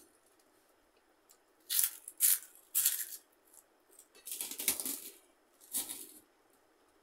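Crisp crunching of fried papad being chewed, a few short bursts close together, then a longer rustling scrape and a last short one as fingers mix rice against a steel plate.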